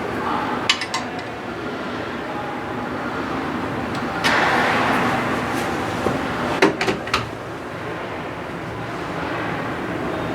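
Skate-sharpening grinder running steadily while a figure-skate blade is worked across the wheel, with a louder grinding rasp about four seconds in and a few sharp metal clicks just under a second in and again around the seventh second.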